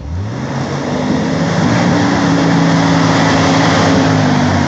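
Off-road 4x4's engine revving up sharply and holding high revs under load as the vehicle tries to climb out of an obstacle.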